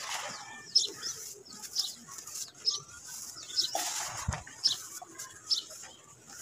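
Hands squeezing and rubbing wet red dirt in a basin of water, with a longer wet scrape about four seconds in. Short high chirps come about once a second over it.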